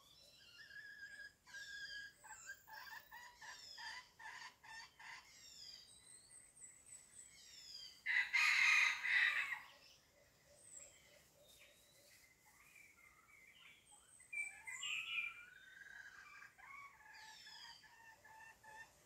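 A red junglefowl rooster crows once, loudly, about eight seconds in, lasting about a second and a half. Small birds chirp and whistle throughout.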